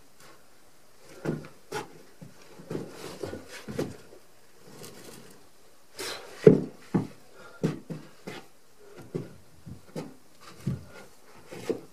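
Irregular wooden knocks, thumps and scrapes as a peeled log is pushed by hand along the top of a log wall and a person clambers against the logs; the loudest knock comes about six and a half seconds in.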